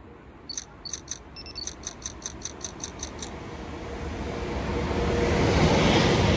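A freight train approaching, its rumble rising steadily to a peak near the end. Before it comes up, about a dozen short, high chirps sound in quick succession, about four a second.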